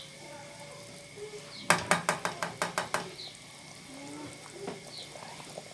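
A spatula knocking against a nonstick cooking pot: a quick run of about eight sharp taps lasting just over a second, amid faint stirring.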